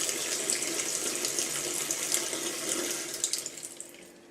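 Water running from a tap just fitted with a new washer, then fading away about three seconds in as the tap is turned off.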